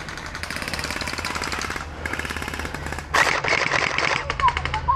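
Hydro Strike Pulsar Pro gel blaster firing on full auto: several strings of rapid-fire clatter, the loudest and longest starting a little past halfway.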